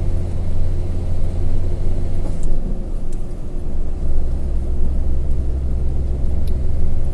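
Truck engine and road noise droning steadily inside the cab while driving. The low engine note drops in pitch about three seconds in.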